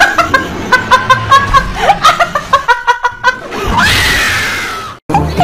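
A woman laughing hard in rapid bursts, then about four seconds in a single long high-pitched scream that slides down in pitch and fades away.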